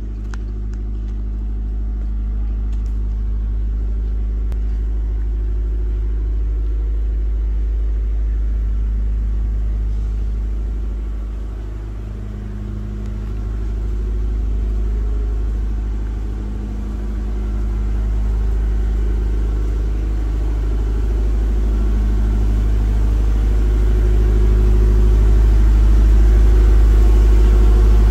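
A steady low engine hum with slow swells and dips, growing louder toward the end.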